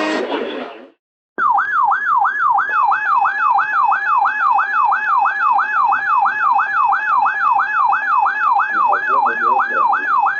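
Electronic emergency alert tone: a siren-like sweep between a high and a low pitch, repeating about three times a second. It starts about a second and a half in and runs on steadily, signalling an incoming severe thunderstorm warning.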